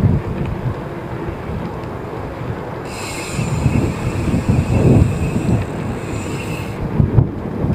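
Wind buffeting the action camera's microphone and tyre rumble from a bicycle riding on asphalt. From about three seconds in, a high squealing hiss runs for about four seconds and then cuts off.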